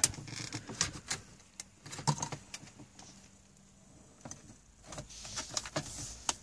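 Plastic dashboard trim around a car stereo being pried and worked loose by hand, with scattered clicks, knocks and scraping.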